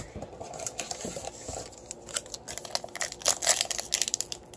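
Plastic-foil wrapper of a 2017 Classics football card pack crinkling in the hands as it is picked up and worked open. The short crackles grow denser in the second half.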